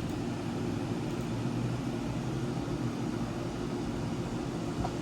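Air conditioner running steadily: a low hum under an even rush of air.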